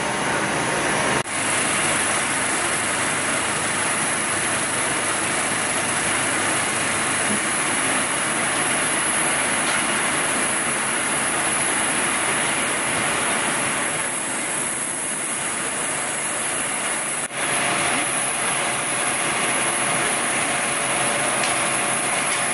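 Fire engines running at a fire scene: a steady, dense engine noise with a hissing edge, broken off abruptly twice.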